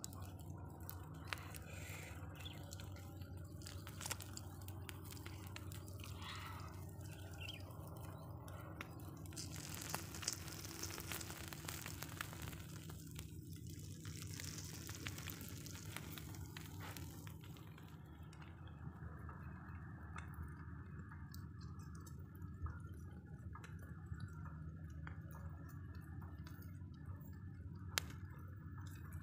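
Small fire of burnt straw smouldering under fish roasting on sticks: faint crackling with scattered small pops, and a soft hiss for several seconds in the middle.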